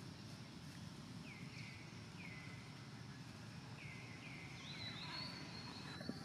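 Animal calls: about six short chirps, each falling in pitch, followed near the end by a higher, longer call, over a steady low outdoor rumble. A brief knock sounds near the end.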